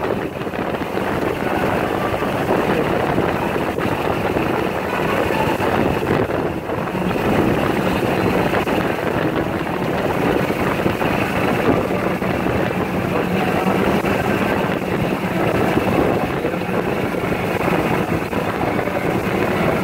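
Steady rushing noise of a moving golf cart heard from inside its vinyl enclosure: wind and road noise with a faint steady hum.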